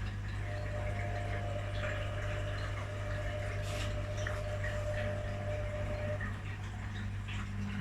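Front-loading washing machines running a quick wash cycle, with water moving through them over a steady low pump-like hum. A thin higher whine comes in about half a second in and stops about six seconds in.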